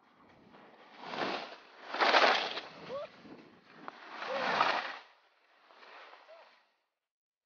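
Skis scraping and hissing over snow in four swells, the last one weaker, with faint distant voices; the sound cuts off suddenly near the end.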